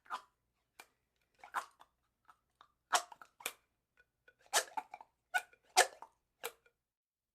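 A straw squeaking in short, separate squeaks, about a dozen at an irregular pace. The loudest come about three seconds in and near six seconds.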